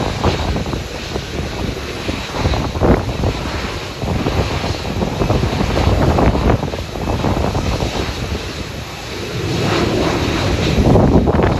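Jet engine noise from a Boeing 787-9 airliner on the runway, mixed with heavy wind buffeting the microphone. The sound swells a little around the middle and again near the end.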